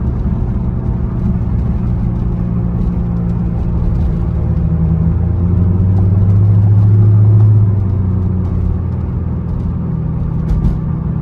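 Inside the cabin of a moving C5 Corvette: steady low engine and road drone from its V8, swelling louder for a couple of seconds past the middle, with faint small rattles from the interior plastic. No distinct wheel-bearing growl stands out; the owner hears nothing beyond the plastic.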